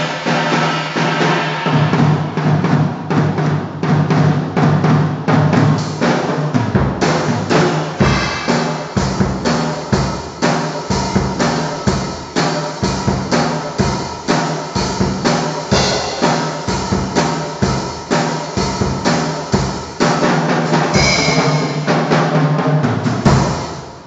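Drum kit played in a steady beat of bass drum and snare strikes, about two a second, over a sustained low tone, stopping abruptly near the end.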